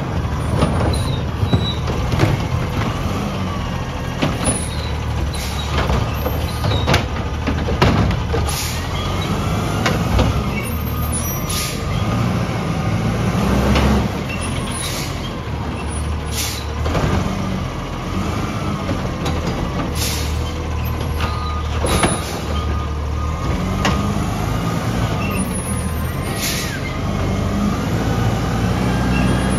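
Front-loader garbage truck's diesel engine running and revving up and down as its hydraulic arm works the bins, with repeated sharp clanks and bangs of metal and plastic.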